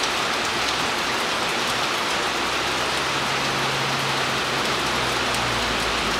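Steady rain falling, an even hiss, with a faint low hum underneath for a few seconds in the middle.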